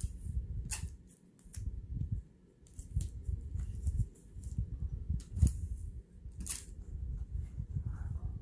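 Adhesive tape pulled from a roll and torn off, with hands handling the embroidery hoop and fabric: about half a dozen short, sharp crackles and rustles over a low rumble of handling.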